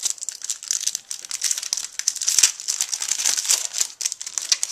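Foil booster-pack wrapper crinkling and crackling continuously as hands tear it open and work the cards out, with one sharp tap about halfway through.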